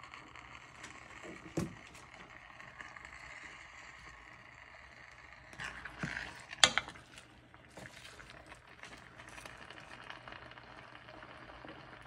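Tomato, onion, garlic and salt starting to sauté in a pot, a steady sizzling hiss. A few clicks, and a sharp knock about six and a half seconds in.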